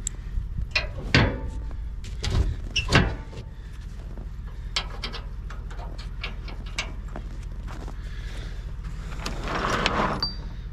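Several sharp knocks and clunks over a steady low hum, then lighter ticks and a brief scraping rush near the end.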